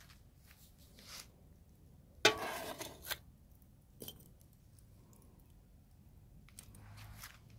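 Metal grill tongs knocking and scraping among burning charcoal briquettes: a sharp clack with a brief scrape about two seconds in, a single click about a second later, and a softer rustle near the end.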